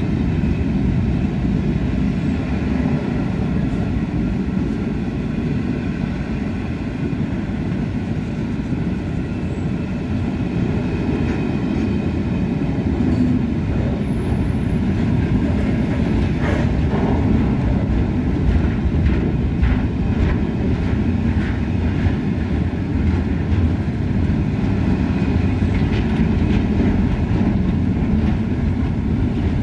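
Open freight wagons of a works train rolling slowly past: a steady low rumble of wheels on rail, with scattered clicks from the wheels over rail joints in the second half.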